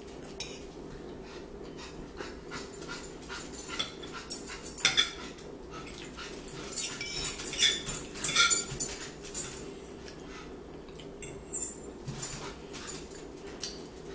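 Metal forks clinking and scraping against plates, mixed with chewing and lip-smacking close to the microphone. The clicks and smacks come in irregular clusters, busiest in the middle.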